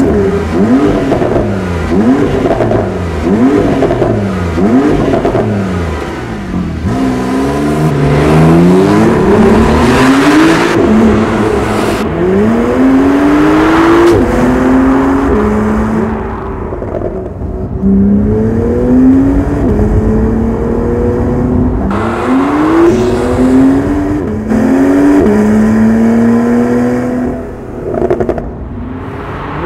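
Porsche 911 (991.2) twin-turbo flat-six through a QuickSilver active sport exhaust, accelerating hard through the gears: the engine note climbs again and again, each rise cut off by an upshift and starting lower. There are a few short revs in between, and the sound drops briefly near the end.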